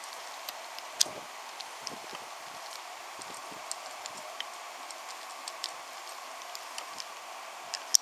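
Wooden toy train pushed by hand along wooden track: scattered small clicks and clacks as its wheels and carriages go over the track joints, over a steady background hiss. The sharpest clack comes about a second in, another just before the end.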